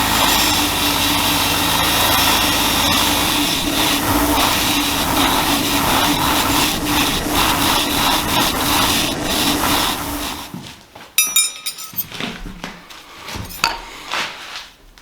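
An electric power tool runs steadily with a constant hum, then switches off about ten seconds in and winds down. After that come a few sharp metallic clicks and handling knocks.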